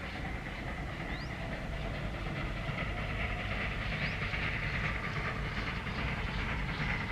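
A 1958 Fablok-built WP class steam locomotive approaching under steam: a steady mix of exhaust hiss and the rumble of its running gear on the rails, growing slightly louder as it comes.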